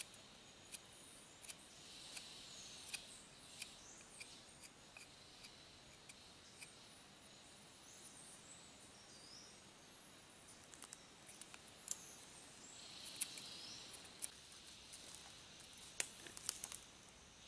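Faint knife strokes cutting green wood, short soft clicks coming about every second as a stick is sharpened into a stake. Faint bird chirps and insects sound in the background.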